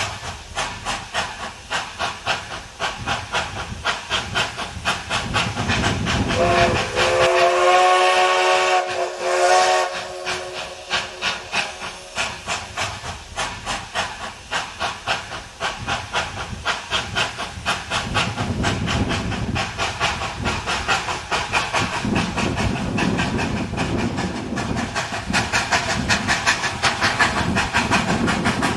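1941 ALCO 2-8-2 Mikado steam locomotive working upgrade, its exhaust chuffing in a steady, regular beat. About six seconds in it sounds one long whistle blast of several tones, lasting about three seconds.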